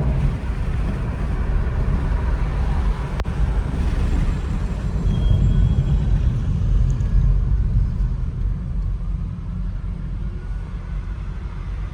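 Steady low rumble of tyre, road and wind noise inside a moving Tesla Model 3, with a single sharp click about three seconds in.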